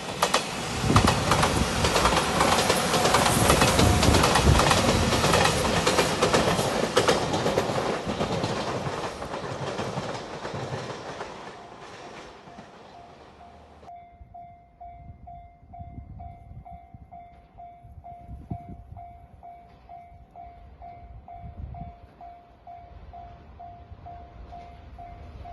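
A five-car JR Shikoku Shiokaze limited express train passes over a level crossing, with wheels clacking over the rail joints, then fades away. As it goes, the level crossing alarm bell can be heard ringing steadily, about two dings a second.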